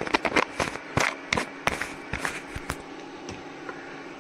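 Quick clicks and taps of a spoon and spice containers being handled while masala is added to a cooking pot: about a dozen sharp taps in the first three seconds, then only a faint low hum.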